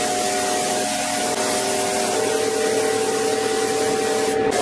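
Gravity-feed paint spray gun hissing steadily as it sprays clear coat, over a steady hum that shifts in pitch about halfway through.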